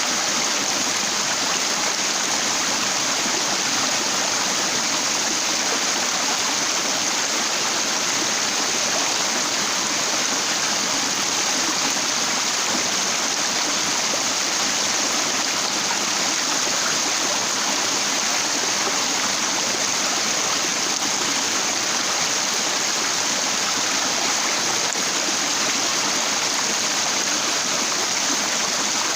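Stream water rushing over rocks, a steady unbroken sound.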